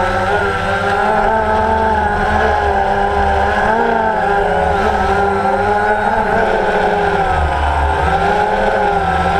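Multirotor drone's motors and propellers whining steadily, the pitch wavering slightly up and down as the motors adjust speed.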